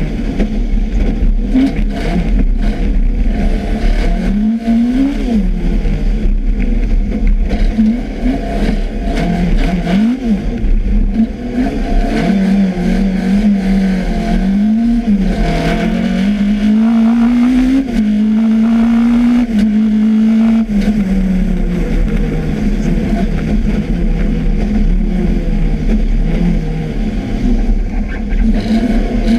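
Rally car engine revving up and down repeatedly as the car is driven hard, its pitch rising and dropping over and over. Wind buffets the outside microphone throughout.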